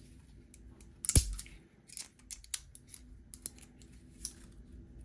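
Spring-loaded gates of metal carabiner hooks on bungee cords snapping shut and clinking: one loud snap about a second in, then several lighter clicks.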